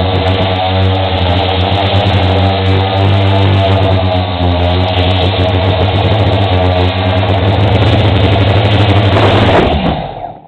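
Quadcopter's electric motors and propellers humming steadily, heard through the craft's onboard camera. The sound dies away just before the end.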